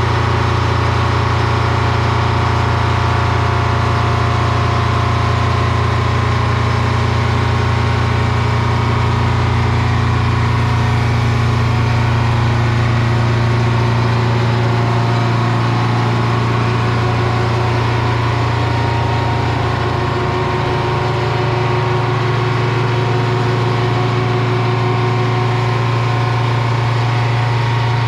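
Railroad track tamper's engine running steadily, with a slight dip in loudness about twenty seconds in.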